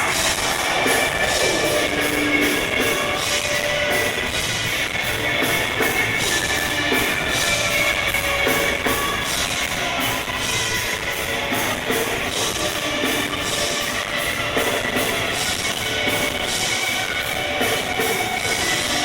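Rock band playing live through a club PA: distorted electric guitars over a drum kit with steady cymbal hits, the sound dense and unbroken.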